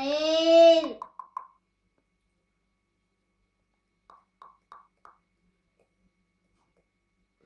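A toddler's drawn-out vocal call, about a second long, rising then falling in pitch, trailing into a few short breathy giggles. A few more faint giggles come about four seconds in, with little else to hear.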